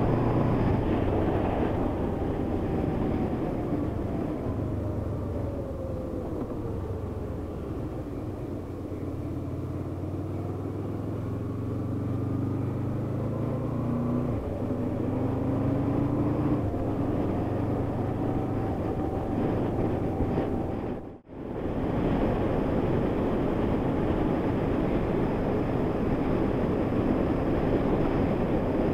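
Honda VFR800's V4 engine under way on the road: the revs fall for the first several seconds as the bike slows, then climb again with gear changes about halfway through. The sound cuts out abruptly for a moment about three quarters of the way in.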